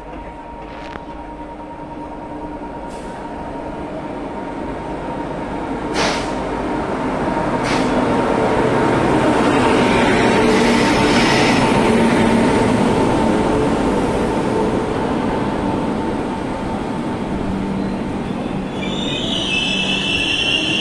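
Indian Railways WAP-7 electric locomotive hauling a passenger train into the platform. It grows louder as it approaches and passes about ten seconds in, with a steady whine and two sharp clicks. The coaches then roll by, and a high-pitched squeal starts near the end as the train slows to a stop.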